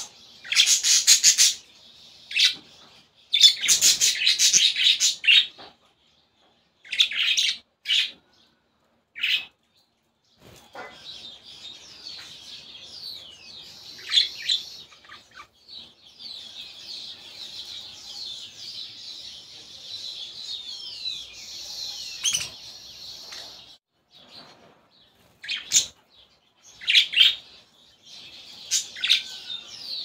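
Young budgerigar chicks chirping in harsh, rasping bursts for the first ten seconds or so, then a quieter run of high twittering chirps, with loud rasping bursts again near the end.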